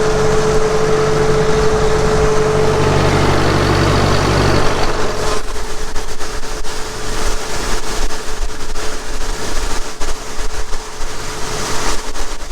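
Tractor-driven grain auger running, a steady whine over the tractor engine's low hum. About five seconds in the low engine hum drops away, leaving the whine and a rushing noise.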